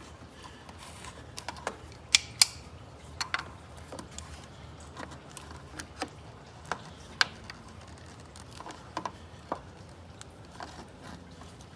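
Scattered light clicks and taps of hands and a tool working the spin-on oil filter on top of the engine as it is twisted and cracked loose.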